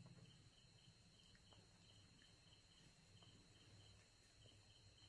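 Near silence: faint insect chirping, short chirps repeating evenly in a high register, over a low steady hum.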